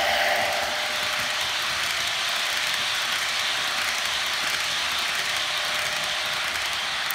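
HO scale Bachmann model diesel locomotive and its coal cars rolling past close by on sectional track: a steady whir and rattle of motor, gears and wheels, loudest as the locomotive goes by about a quarter second in, then the cars rolling steadily past.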